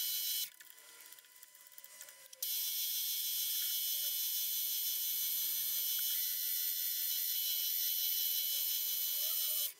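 Small milling machine's spindle running a centre drill into an aluminium chassis cross member: a steady high machine whine over a low hum. It drops away about half a second in, comes back about two seconds later, and cuts off sharply just before the end.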